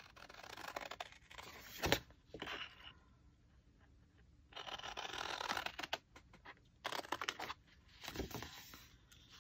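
Paper being handled on a work surface: several short bouts of rustling and scraping, with a sharp tap about two seconds in and another near the end.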